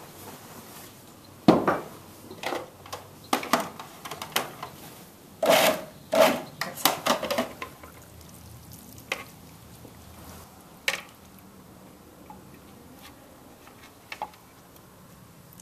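A plastic food-processor bowl being handled and a knife scraping a chopped sauce out of it: a quick run of sharp knocks and short scrapes over the first half, then a few scattered taps.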